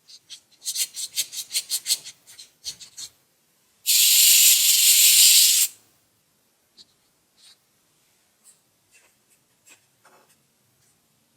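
Quick hand-worked rubbing or scraping strokes on a surface, about six a second, then a loud steady hiss lasting nearly two seconds, followed by a few light clicks and taps.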